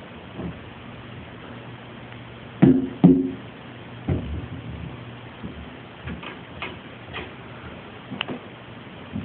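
Irregular faint ticks and knocks, with two louder knocks close together about three seconds in.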